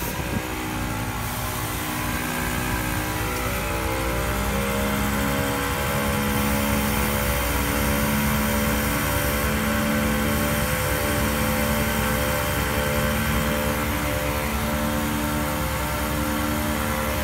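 Car's wheels and drive shaft spinning on a lift, making a steady droning hum with a slight waver in pitch over a low rumble: the noise of a worn bearing in the driveline or wheel hub.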